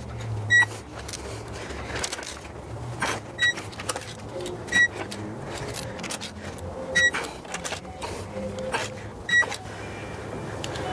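Electronic torque wrench beeping each time a cylinder-head stud nut on a Mercedes-AMG M156 V8 reaches the final 150 N·m: five short, high beeps a couple of seconds apart, with clicks of the wrench and metal handling in between.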